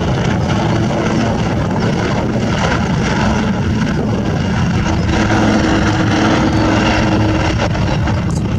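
Two AW159 Wildcat helicopters flying in formation: steady rotor and turbine noise, with a faint steady hum joining in about five seconds in.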